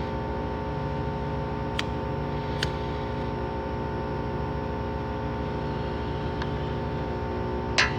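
Steady machinery drone at an even pitch, with three sharp clicks: about two seconds in, shortly after, and near the end.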